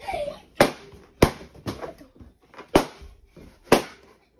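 Rubber party balloons being burst one after another on a tiled floor: about six sharp bangs, half a second to a second apart, each with a short room echo.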